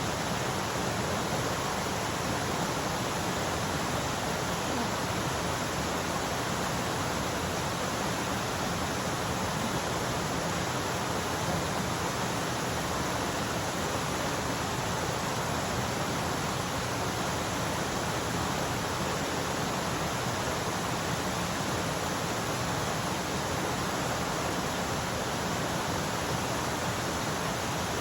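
Mountain stream rushing over rocks, a steady full water noise without a break.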